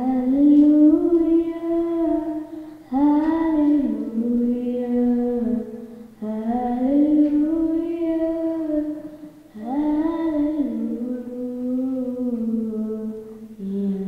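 Children's a cappella group singing held notes in harmony with no accompaniment, in four phrases of about three seconds each, the pitch stepping up and down within each phrase.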